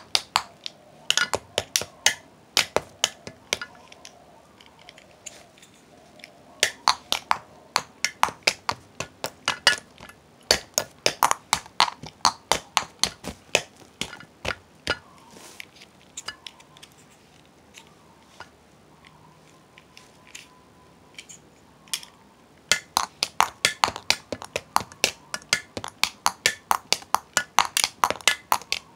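Drumming: quick, sharp taps on a hard surface, coming in uneven runs of several strikes a second, with pauses about four seconds in and again in the middle.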